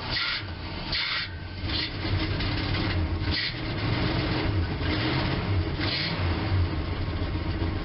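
A carbureted old Dodge Power Wagon engine idling just after a cold start on the manual choke, a steady low rumble. Several short bursts of hiss come over it.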